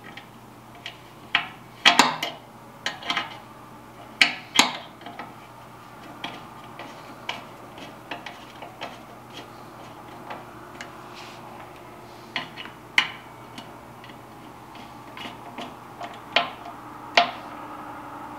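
Irregular metallic clicks and clinks of a screwdriver driving and seating screws on an oil-burner blower's housing and wiring connections, with several louder sharp taps among the lighter ticks.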